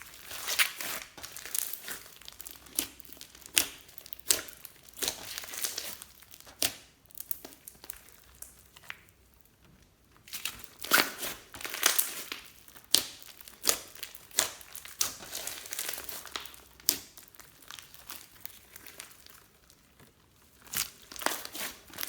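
Glossy slime being kneaded and stretched by hand, with irregular sticky crackling and clicking in bursts and a couple of quieter pauses.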